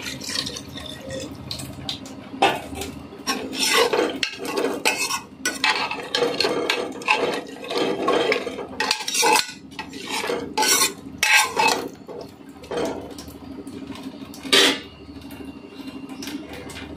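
Long metal spatula stirring a watery vegetable mixture in a pressure cooker, scraping and clinking irregularly against the pot's sides and bottom.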